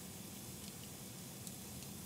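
Log fire burning in a fireplace: a steady low rumble of flames with a few faint crackles.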